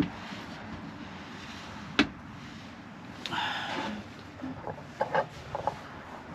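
Handling and movement noise inside an empty van: a sharp knock at the start and another about two seconds later, a brief rustle, then a few light taps and clicks.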